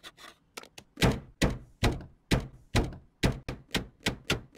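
A rubber stamp thumping repeatedly onto paper on a desk. The strokes start about a second in at two or three a second and quicken to about four a second.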